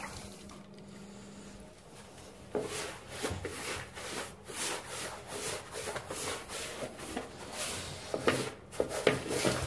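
Sponge rubbing back and forth over a plastered wall, washing it down with primer mixed with water. The strokes start about two and a half seconds in and come roughly one to two a second.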